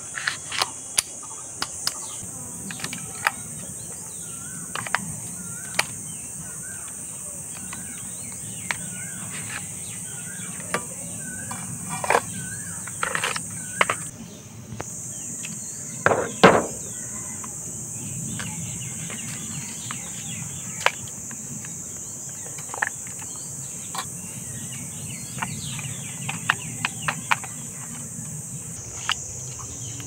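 A steady high-pitched insect drone, with scattered sharp clicks and knocks of hard plastic toy parts being handled as battery covers are opened and AA batteries fitted into a toy remote-control airliner; the loudest knocks come about halfway through. A few short chirps sound in the first half.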